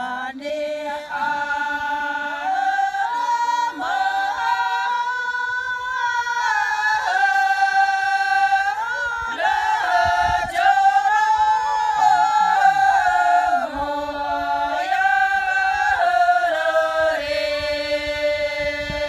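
A group of women singing together unaccompanied, holding long sustained notes and stepping between pitches.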